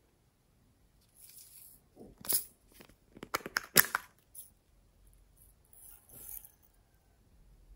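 Crinkly paper or plastic packaging handled close up: a soft rustle about a second in, then a run of sharp crackles and clicks between two and four seconds in, and a faint rustle again near six seconds.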